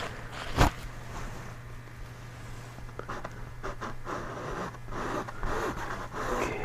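Short scratchy strokes of a small paintbrush dragging wet oil paint across a stretched canvas, with a single sharp knock about half a second in. A faint steady low hum runs underneath.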